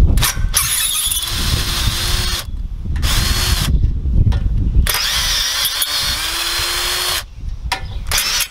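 Cordless drill with a 3/8 socket spinning hex bolts out of an aluminium trimmer-rack bracket. It runs in about four short bursts with brief pauses between them, and the motor whine rises in pitch as it spins up each time.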